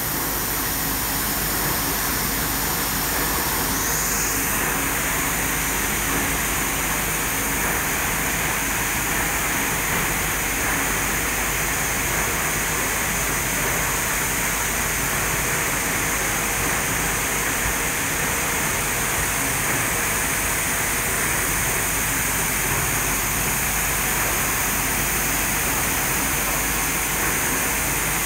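Rice blender machine running steadily, with rice pouring into its hopper: a dense, even machine noise with a steady high hiss and whine.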